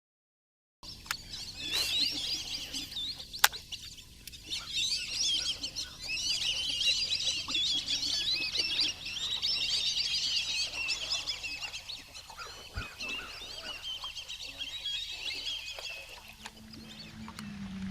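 A flock of birds chattering and chirping all at once, a dense high-pitched din that thins out in the last few seconds.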